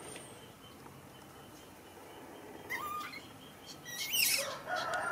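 Baby monkey giving short, high, rising squeaks, two about three and four seconds in, then a longer wavering call near the end.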